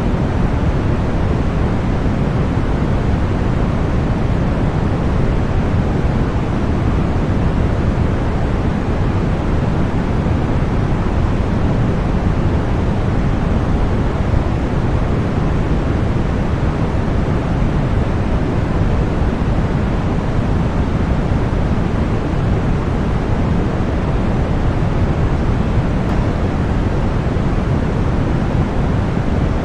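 Continuous generated masking noise of the kind sold as deep white noise for tinnitus relief. It is a steady, unchanging hiss weighted toward the low end, strongest in the bass and thinning out toward the treble, so it sounds deeper than flat white noise.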